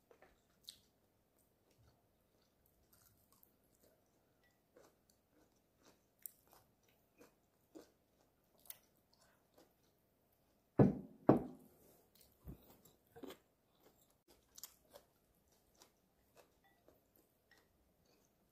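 Quiet, close-miked chewing and biting of stir-fried beef and Chinese broccoli: scattered wet mouth clicks and soft crunches. About eleven seconds in come two much louder knocks close together.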